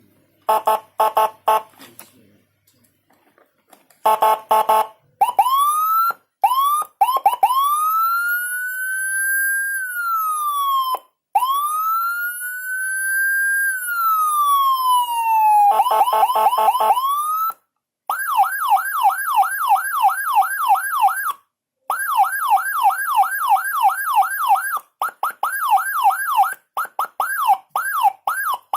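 Electronic vehicle siren module (Senken CJB100BD) cycling through its tones. It gives short pulsed horn blasts, then two long wails that rise and fall slowly, more horn blasts, then a fast yelp of about three sweeps a second with brief gaps.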